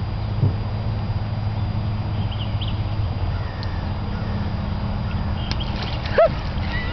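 Outdoor ambience dominated by a steady low hum, with a few faint bird chirps. A single short, pitched call rises and falls about six seconds in.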